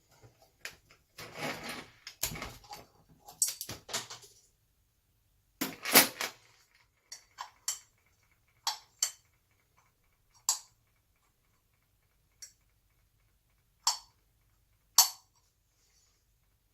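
Metal SU carburettor parts being handled on a workbench: rattling and clattering at first, a loud metallic clank about six seconds in, then single sharp metal clicks every second or so.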